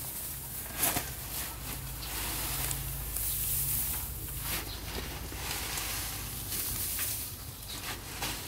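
Fresh-cut grass rustling and crackling as it is tipped from a woven plastic feed sack into a wooden trough, with a sharp crackle about a second in and a steady low hum underneath.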